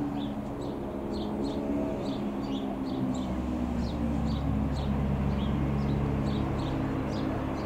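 Single piston engine of a Robin R3000-140 light aircraft droning steadily overhead on approach, its pitch easing slightly lower. Small birds chirp about twice a second over it.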